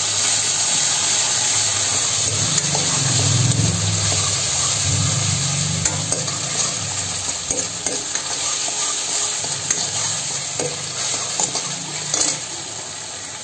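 Steel ladle stirring and scraping onions, capsicum and sauces in a hot iron wok over a gas burner, over a steady sizzle of frying. The sound grows somewhat quieter toward the end.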